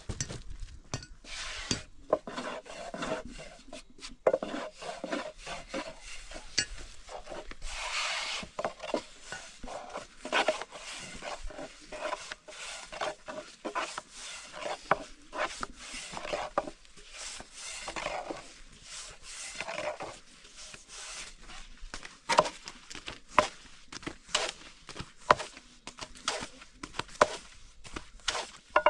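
Long thin wooden rolling pin rolling out thin flatbread dough on a round wooden board: rubbing strokes broken by many irregular wooden clicks and knocks as the pin rolls, turns and taps against the board.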